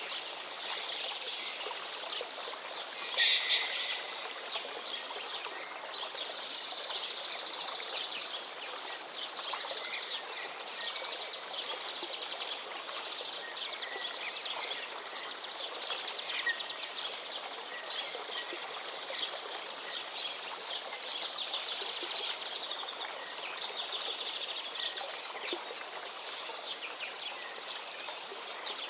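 River water flowing steadily, with birds chirping now and then; a brief louder splash or call about three seconds in.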